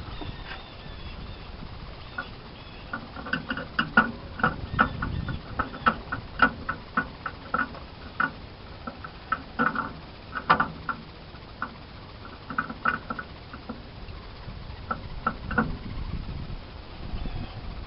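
Irregular light clicks and taps, some with a short ring. They come thickest in the middle stretch and thin out near the end.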